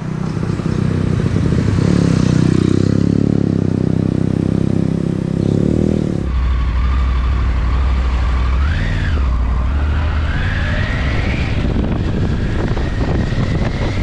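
Motorcycle engine running, steady for about six seconds, then the sound changes abruptly to the bike under way on the road: a deep rumble with a whine that rises and falls in pitch.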